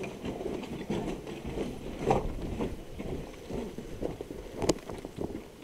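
Footsteps of players in boots walking over rubble and concrete steps, an irregular run of scuffs and knocks, with one sharp knock about four and a half seconds in.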